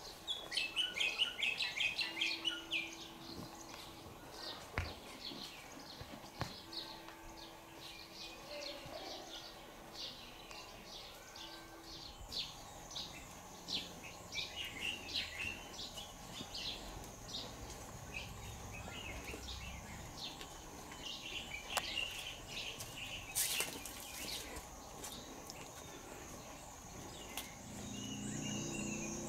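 Small birds chirping repeatedly in short, quick calls, with a steady high-pitched insect drone joining about halfway through.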